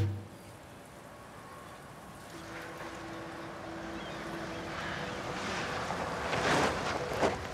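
A car driving up: its tyre and engine noise swell steadily over several seconds and are loudest near the end, with a short knock shortly before the end.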